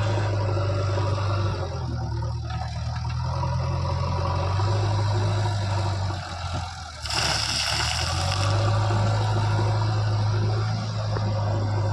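Diesel engine of heavy machinery running with a steady low drone, its pitch stepping up and down a few times as the load changes. About seven seconds in comes a burst of hissing lasting over a second.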